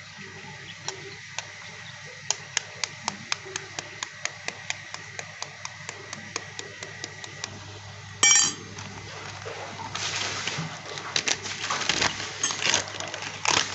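Metal spoon tapping a chicken eggshell to crack it, a run of light clicks about four a second. About eight seconds in comes a short high ringing clink, then scraping and rustling.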